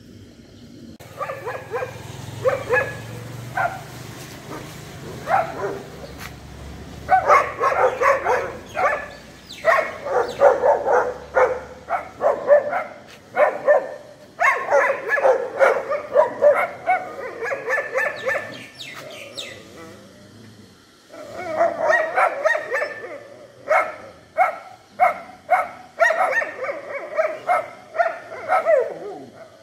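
Stray dogs barking in rapid, overlapping runs of barks. They pause for a couple of seconds about two-thirds of the way through, then start again.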